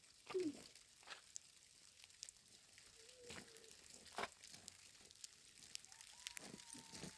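Faint crackling and popping of a small wood fire, with a few short thin tonal sounds, the longest held for about a second near the end.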